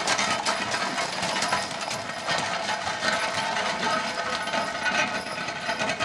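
Horse-drawn potato spinner clattering steadily as it is pulled over gravel, its iron wheels driving the gearing and spinning tines in a rapid metallic rattle.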